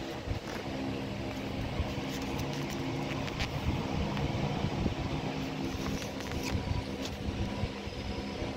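Steady mechanical hum with several low droning tones that swell and fade, and a few short faint scratches.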